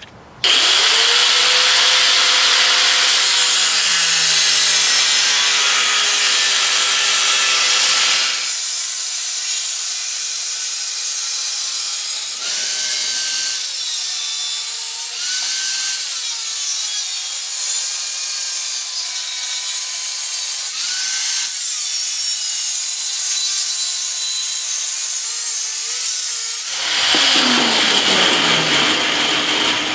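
Angle grinder with an abrasive cutoff disc cutting steel plate: it spins up about half a second in, then cuts with its pitch dipping and recovering each time the disc bites. Near the end it is switched off and winds down with a falling whine.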